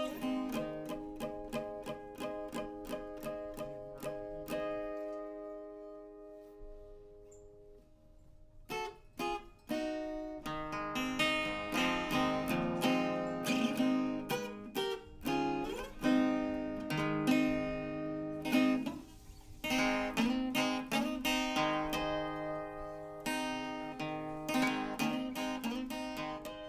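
Background music on plucked and strummed acoustic guitar, getting quieter over the first several seconds and coming back fuller about nine seconds in.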